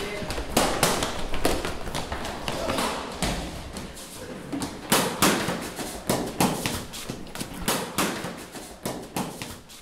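Footsteps of several people running along a hard terrazzo floor: a quick, irregular patter of footfalls with some louder thuds.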